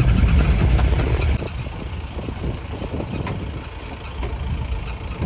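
Engine and road rumble of a safari vehicle on the move, loud for about the first second and a half, then easing to a quieter rumble.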